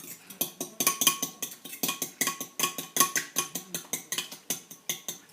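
Eggs being beaten with a fork in a bowl: quick, regular clinks of the fork against the bowl's side, about four to five strokes a second, each with a faint ring.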